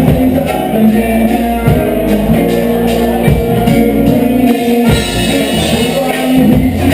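Reggae dub music played by a band: a bass line moves under the other instruments, with some singing.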